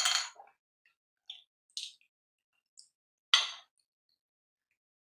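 Close-up mouth sounds of eating soft, ripe fruit flesh: short wet smacks and sucks, the loudest right at the start and another strong one about three and a half seconds in, with two smaller ones between.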